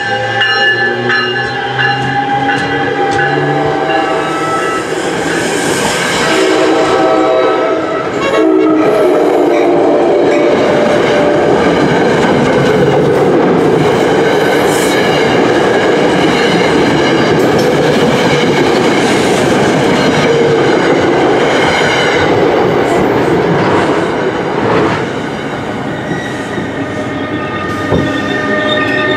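An NJ Transit passenger train's bilevel coaches pass close by, their wheels rumbling and clattering over the rails, with steady tones ringing above. The rumble is fullest through the middle and eases a little near the end.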